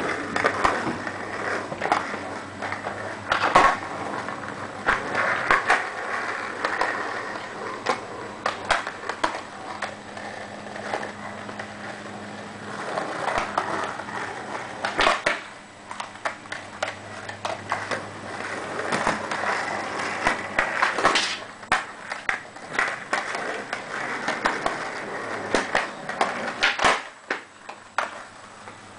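Skateboards rolling on concrete, a continuous rumbling roll broken by frequent sharp clacks and knocks of boards and wheels, a few of them much louder than the rest.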